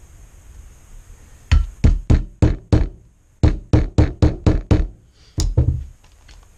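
A rapid series of sharp knocks from work on the larger half of a 1967 MGB front brake caliper being dismantled. There are five knocks at about four a second, a short pause, six more, then a single last knock.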